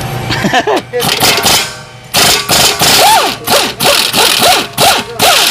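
Impact wrench run in a string of short trigger bursts, its motor pitch climbing and dropping with each pull over a harsh hammering rattle; about a second of quiet near two seconds in, then the bursts come close together.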